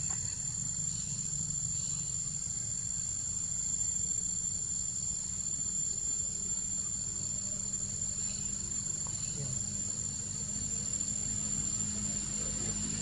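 Steady high-pitched drone of insects calling without a break, over a low steady rumble.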